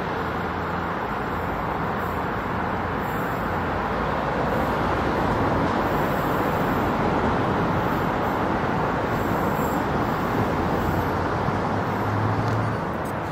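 Steady outdoor rushing noise, a little louder in the middle and easing near the end, with a brief low hum about twelve seconds in.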